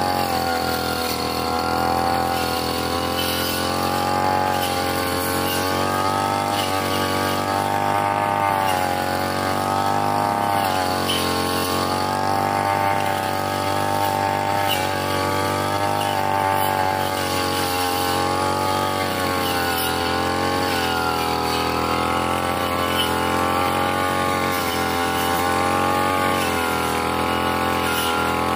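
Backpack brush cutter fitted with a circular saw blade, its engine running at working speed while the blade cuts through grass and sapling stems. The engine pitch rises and falls gently and unevenly as the blade takes and sheds load.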